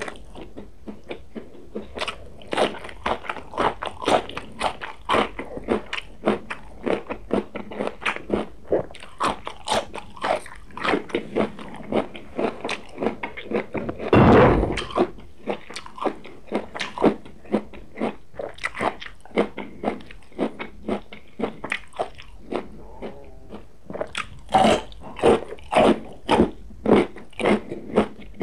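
Close-miked crunchy chewing of raw vegetables, a green bean and a carrot, at about two crunches a second. There is one louder, longer noise about halfway through, and the crunches grow louder near the end.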